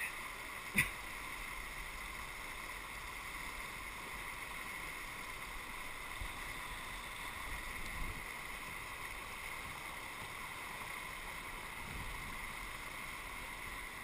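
Whitewater rapids rushing steadily around an inflatable kayak, with a single sharp knock just under a second in.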